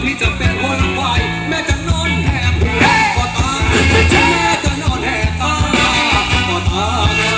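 Live band playing upbeat Thai ramwong dance music, a singer over a steady drum beat.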